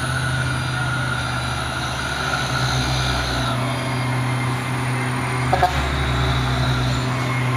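Heavy truck engine running steadily, with a steady high whine that drops away about three and a half seconds in and a brief click a little later.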